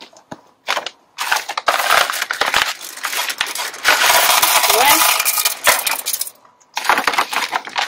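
Gravel poured from a plastic bag into the bottom of a sink pond, a steady rattle of stones for about five seconds, then another short pour near the end.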